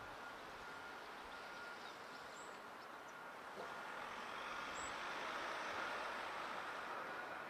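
Steady outdoor background noise of distant traffic, growing a little louder about halfway through.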